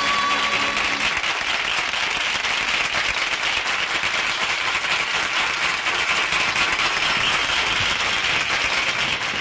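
Audience applauding steadily, taking over from the song's last held notes, which die away in the first second.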